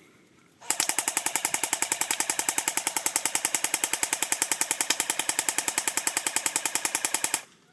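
Airsoft gun firing one long full-auto burst of about seven seconds, a rapid, even stream of sharp pops that starts and stops abruptly.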